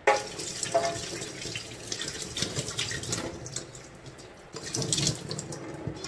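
Kitchen tap running into a stainless steel sink while vegetables are rinsed by hand under the stream, water splashing irregularly.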